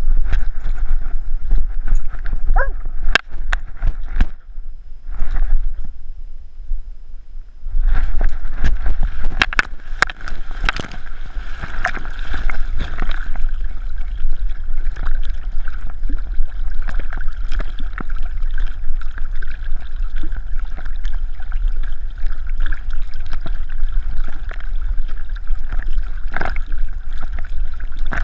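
Water sloshing and gurgling around a swimming dog, heard through a GoPro housing mounted on its back, with a low rumble and many sharp taps against the case. It dips quieter a few seconds in, then turns steady and louder from about eight seconds on.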